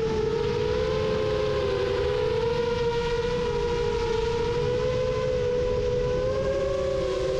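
Rajawali Fold 7 FPV quadcopter's motors and propellers whining in flight: a steady hum made of two close pitches that drift slightly up and down as the throttle changes.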